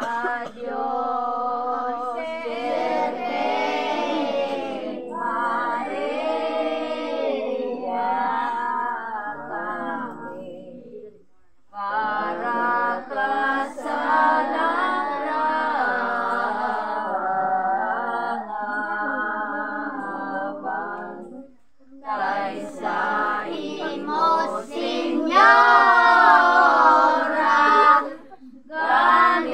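A group of women's and children's voices singing a devotional hymn together in long phrases, with short breaks about 11, 21 and 28 seconds in.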